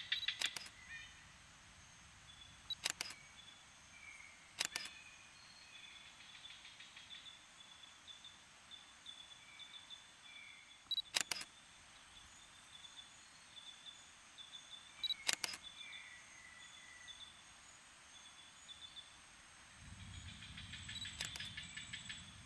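Faint outdoor ambience under trees: thin high chirping with short gliding calls, broken by about six sharp clicks. A low rumble rises for the last couple of seconds.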